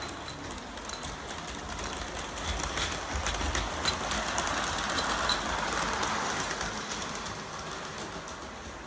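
Märklin Maxi gauge 1 model train running on its track, with a motor hum and a rapid patter of clicks, growing louder as it passes close about halfway through and then fading.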